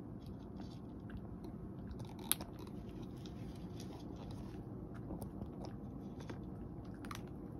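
Cat eating dry kibble from a dish, chewing with irregular small crunches. One sharper crunch comes about two seconds in.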